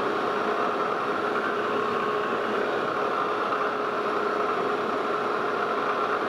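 Metal lathe running with its spindle turning, a steady machine hum with a couple of held tones.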